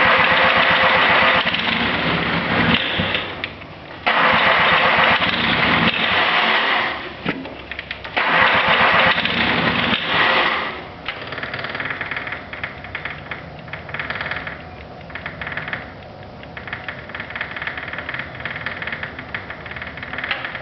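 The Kubota diesel engine of a Cub Cadet 1572 garden tractor is cranked on the starter in three long bursts and is hard to start. After the third burst, about halfway through, it catches and runs at idle.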